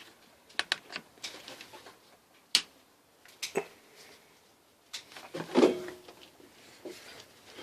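Clicks and knocks of a saw chain being handled and locked into a bench chain sharpener's clamp, with a sharper click about two and a half seconds in and a longer scrape around five and a half seconds in. The grinder motor is not running.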